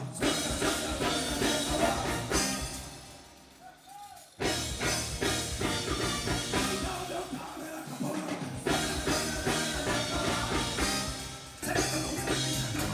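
Band music with a drum kit, played live through the stage sound system during a sound check. It dies away after about two and a half seconds and starts again suddenly about four seconds in.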